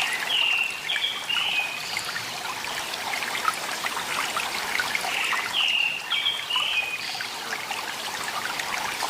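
Small stream trickling steadily. A bird sings over it twice, each time a short phrase of a few falling notes lasting about a second and a half: once near the start and again about five and a half seconds in.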